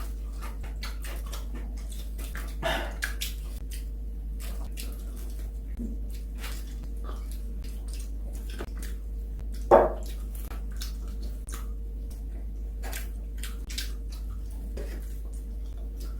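Close-up eating sounds of someone chewing and smacking on fried chicken: many small irregular wet clicks, with a louder short sound about ten seconds in. A steady hum runs underneath.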